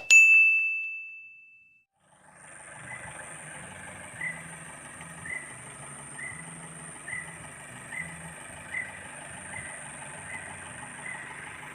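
A bell-like ding rings out and fades away over the first two seconds. Then a steady high-pitched hum, with a short faint chirp about once a second.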